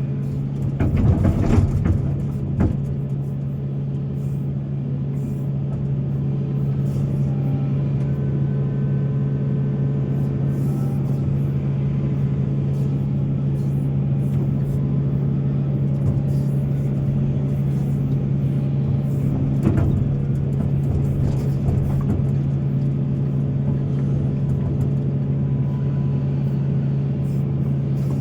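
Excavator's diesel engine running steadily under load, with a few knocks from the machine or bucket about a second or two in and again about twenty seconds in.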